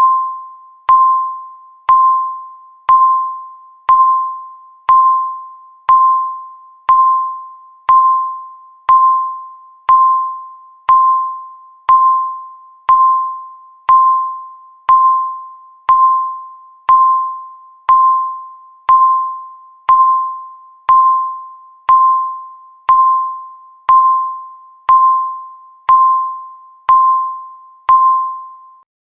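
Countdown timer beeping once a second: each beep is a single chime-like tone at the same pitch, struck sharply and fading quickly. The beeps stop just before the end.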